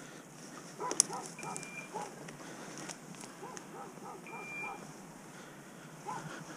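Short electronic beeps at one steady pitch, twice, about three seconds apart, typical of a hunting dog's beeper collar. Underneath are footsteps and rustling through brush, with a sharp snap about a second in.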